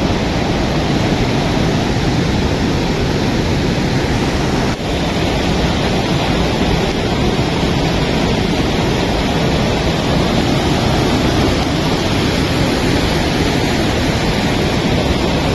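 A waterfall and the torrent below it rushing loudly and steadily, in heavy flood flow after rain. There is a brief dip about five seconds in.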